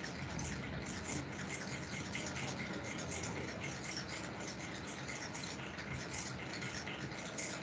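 Steady background hiss with faint irregular ticking over it.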